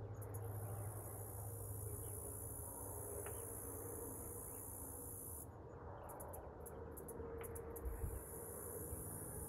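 A steady, high-pitched chorus of insects such as crickets, which drops out for about two seconds past the middle and then returns, over a low, steady rumble of distant highway traffic.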